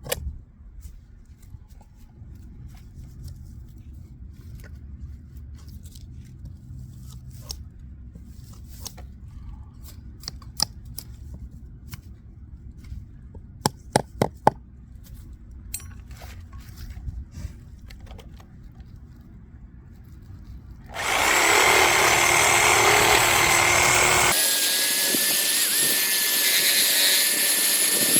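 Outdoor handling noise with a few sharp knocks, as of wood or metal being struck, then a power tool starting suddenly about three quarters of the way through and running loudly and steadily with a high whine, as it works on the old fence.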